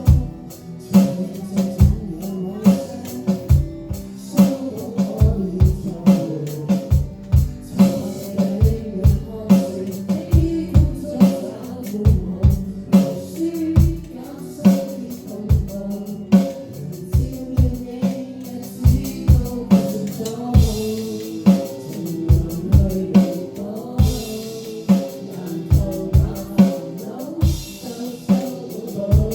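A song playing, with a steady drum-kit beat of kick and snare and sustained pitched instruments and singing.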